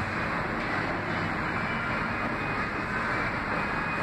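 R46 subway train approaching along the track into an underground station platform: a steady noise of wheels running on the rails and the train's running gear, holding an even level throughout.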